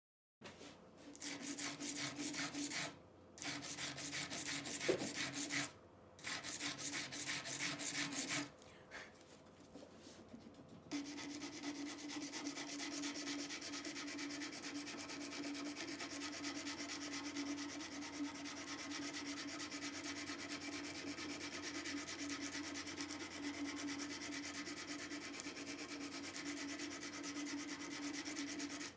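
Metal being abraded by hand with rapid back-and-forth rasping strokes, as when rust is scoured off a steel edge iron. There are three bursts with short pauses, then steady continuous scrubbing from about eleven seconds in.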